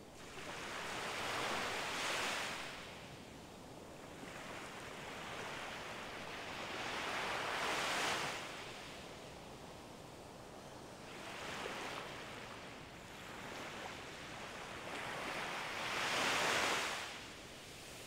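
Small waves washing up on a sandy beach: the surf hisses, swells and fades about four times, with the last wash near the end the loudest.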